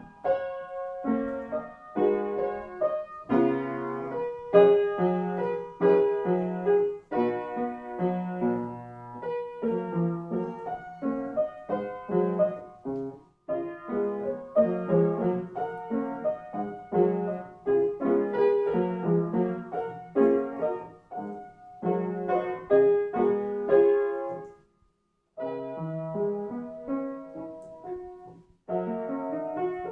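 Piano music: chords and melody in struck notes that ring and fade, with short pauses about 13 and 25 seconds in and rising arpeggios near the end.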